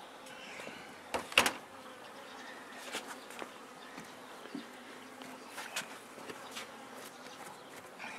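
Honeybees buzzing around a hive in a steady hum, with a sharp double knock about a second and a half in and a few lighter clicks after it.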